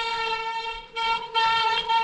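Mountain bike brakes squealing in a steady, high-pitched tone, in several squeals with short breaks between them as the brakes are applied and released.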